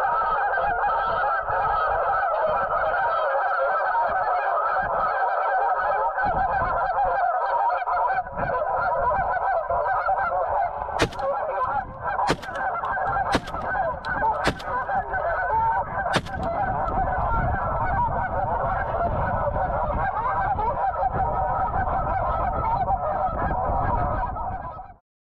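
A dense, continuous chorus of goose honking from an electronic goose caller's horn speaker. About eleven seconds in, five shotgun shots are fired over roughly five seconds.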